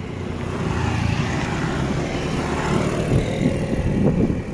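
Motor engine noise that swells over the first couple of seconds and then eases off, over a steady rumble.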